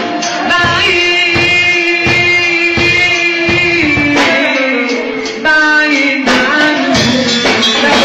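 A man singing an Egyptian sha'bi mawwal into a microphone, with long held, ornamented notes, over a live band with drums and percussion. The band gets louder about five and a half seconds in.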